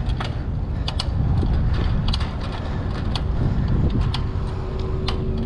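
Wind buffeting the microphone and a low road rumble from a bicycle rolling along pavement, with irregular clicks and rattles from the bike's front rack and frame over the bumps.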